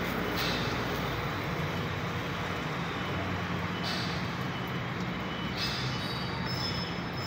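Steady low mechanical drone with a constant hum: machinery running in the background.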